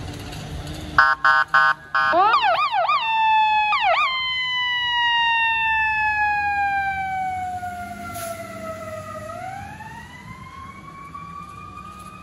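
Fire engine responding to an emergency call: a few short horn blasts about a second in, then its siren sweeps quickly up and down twice and settles into a wail that slowly falls in pitch and rises again, getting fainter as the truck drives away.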